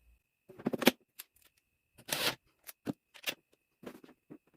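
Metal sockets clinking and clattering against each other as the socket set is handled, in a string of irregular sharp clicks, several of them about a second apart.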